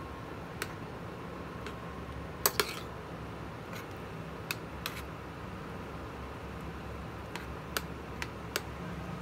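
Metal spoon clinking and scraping against a stainless steel frying pan while stirring a bean stew: scattered sharp clicks, the loudest pair about two and a half seconds in, over a steady low hum.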